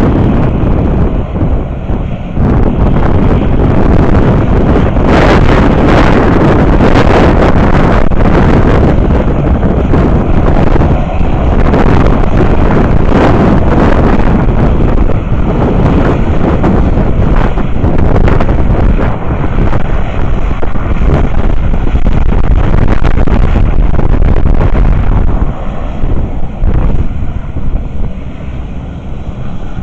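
Strong wind buffeting the microphone: a loud, rough rumbling roar that eases a little in the last few seconds.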